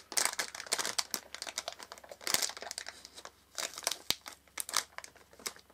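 Clear plastic wrapper around a small squishy stress ball crinkling in the hands as it is turned over and picked at, in irregular crackles with short pauses.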